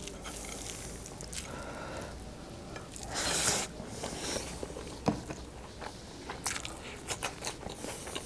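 A person eating mutton karahi and rice by hand: fingers mixing rice on the plate, then chewing with wet mouth clicks and smacks. A brief rushing noise about three seconds in is the loudest moment.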